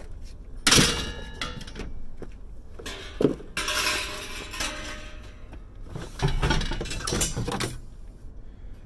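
Scrap metal and debris clanking and clattering as a heavy metal porch railing is handled: a sharp clank about a second in, a rattling scrape a few seconds later, then several knocks near the end.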